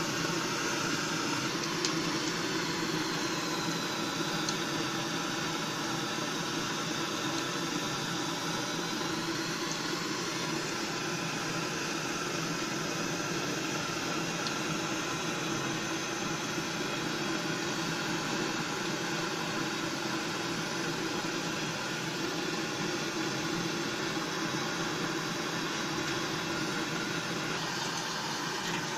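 Hot oil sizzling steadily as batter-coated cauliflower florets deep-fry in a kadai.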